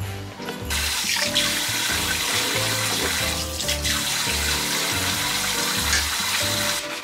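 Kitchen tap running into the sink while a dish is washed with a sponge under it. The water starts under a second in and cuts off just before the end.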